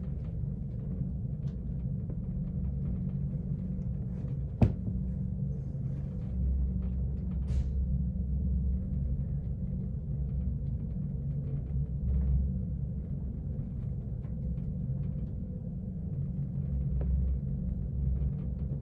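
Low rumble of a ship under way, heard inside a crew cabin, swelling and easing now and then. A single sharp click comes a little over four seconds in.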